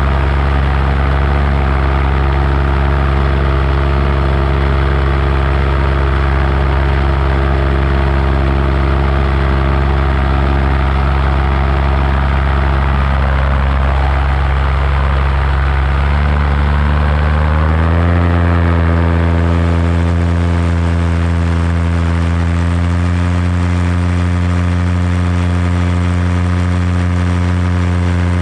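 Paramotor engine and propeller running steadily in flight; about two-thirds of the way through, the revs rise and then hold at the higher pitch.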